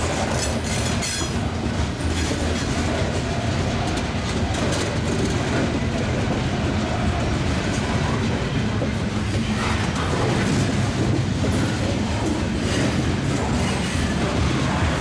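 Covered hopper cars of a freight grain train rolling past: a steady rumble of wheels on the rails with a clickety-clack over the rail joints, and a few brief higher-pitched wheel noises near the start and again near the end.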